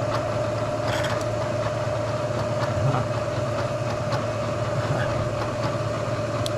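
A machine's spindle motor running at a steady speed, a constant hum with a steady whine, with a few light taps over it, one about a second in and one near the end.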